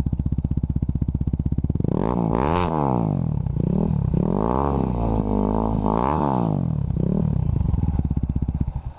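KTM RC single-cylinder engine breathing through a Cross Fire aftermarket exhaust, idling with an even pulse, then blipped up through several revs and back down, settling to idle again before cutting off right at the end.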